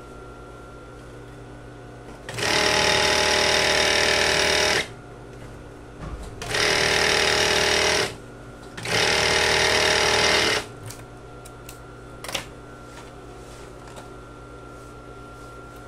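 Overlock machine serging the raw edge of a trouser leg seam, in three runs of a second or two each with short pauses between, and a steady hum between the runs. A few small clicks follow the last run.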